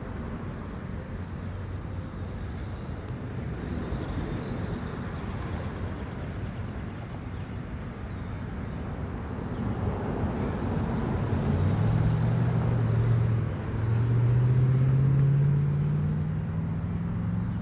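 Steady outdoor background noise with a motor engine humming, growing louder and rising slowly in pitch from about halfway through.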